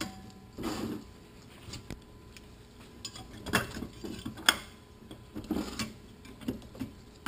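Steel pressure plate and snap ring being fitted into the third clutch drum of a Toyota A340 automatic transmission: scattered metallic clicks, taps and scrapes, the sharpest about three and a half and four and a half seconds in.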